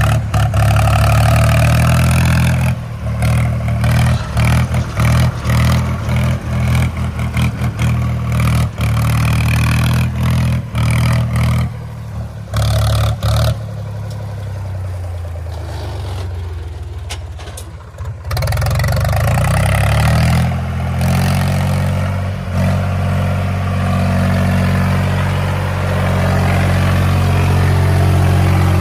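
Heavy diesel machinery engine running under load, its level rising and falling, with a choppy stretch of many brief dropouts in the middle.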